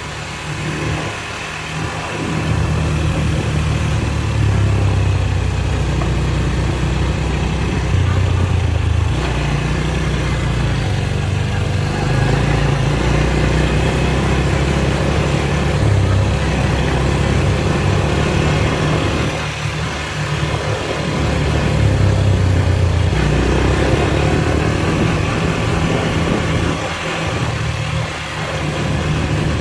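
Four-wheeler (ATV) engine running on a trail, its note rising and falling with the throttle as it tows a length of chain link fence to smooth the ground.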